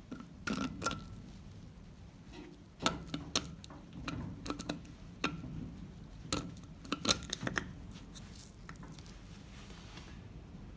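Irregular metal clicks and sharp knocks, the loudest clustered between about three and seven and a half seconds in, as the grease cap is fitted onto an MG Midget front wheel hub.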